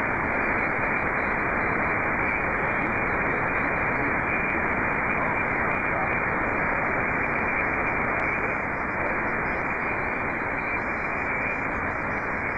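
Shortwave receiver in SSB mode giving out steady band noise: an even hiss, narrowed by the receiver's SSB filter, with no station heard. It gets a little quieter about two-thirds of the way through.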